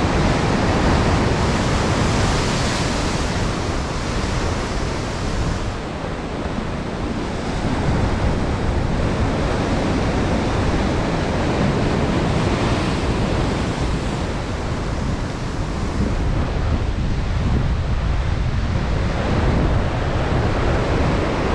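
Ocean surf washing against the shore, with wind rumbling on the microphone.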